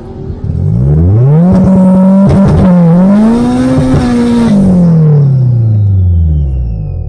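A drag car's engine revved hard and held high for about three seconds during a burnout, over a hiss of spinning tyres, with a brief dip in revs midway; the revs then fall away smoothly.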